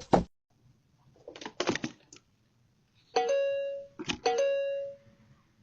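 Doorbell chime ringing two tones about a second apart, each ringing on and fading over about a second. Before them come a few short clicks and knocks.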